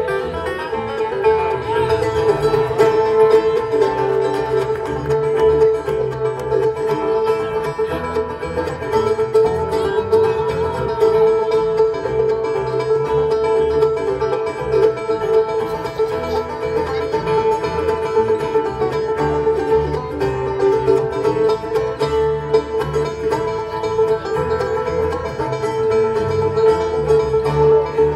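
A live bluegrass band playing an instrumental stretch of a song on plucked strings, the banjo prominent, without singing.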